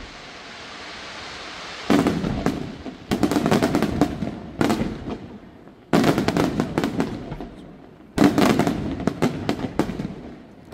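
Aerial fireworks display: a bang and a building hiss, then five sudden salvos of shells bursting, about two, three, four and a half, six and eight seconds in, each followed by dense crackling that dies away.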